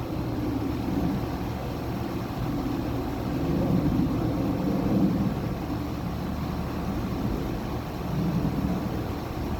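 2019 Carrier Comfort air conditioner's outdoor unit running: a steady low compressor hum under the rush of the condenser fan, which swells and fades every few seconds.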